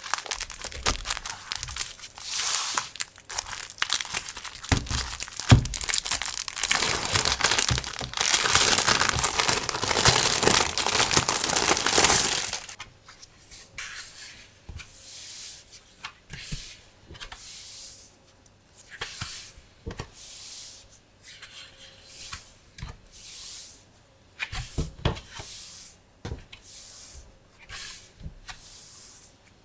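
Packaging being torn open and crinkled, a dense run of tearing and rustling for about the first twelve seconds. After that come short, quieter rustles of paper or plastic being handled, every second or two.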